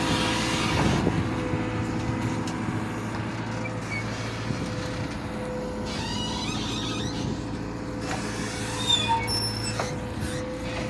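Caterpillar 428E backhoe loader's diesel engine running at a steady pitch, with a few short high squeaks in the second half.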